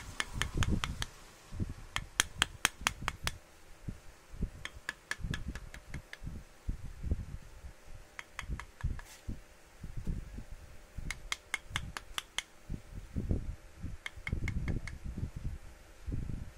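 Short runs of quick, light, sharp taps, about five or six a second, coming in groups every two to three seconds, over irregular low bumps and thuds.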